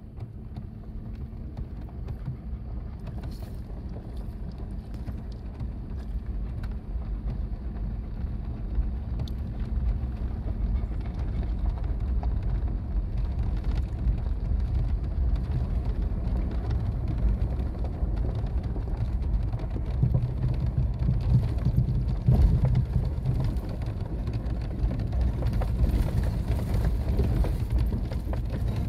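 A truck or SUV driving slowly over a rutted dirt track, heard from inside the cab: a low rumble of engine, tyres and suspension with a few light knocks, growing louder over the first ten seconds or so.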